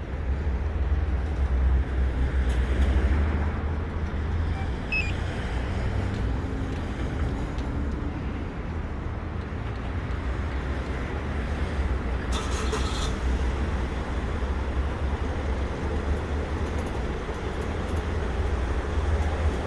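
Car engine running steadily with a low rumble, and a brief sharper sound a little past the middle.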